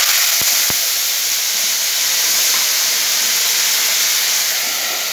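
Ground onion hitting hot oil in a steel pan, setting off loud, steady sizzling as the oil spits hard. Two light knocks sound about half a second in.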